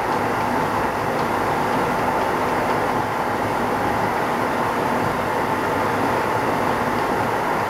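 Renewed Keisei 3500 series electric train running at steady speed, heard from inside the motor car: rolling noise from the wheels on the track with a steady whine held at one pitch.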